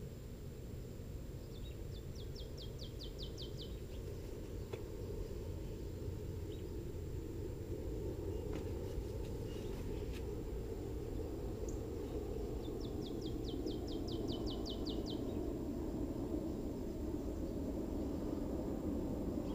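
Steady low outdoor background rumble, a little louder towards the end. A small songbird sings a fast trill of about ten quick notes twice, once about two seconds in and again about thirteen seconds in.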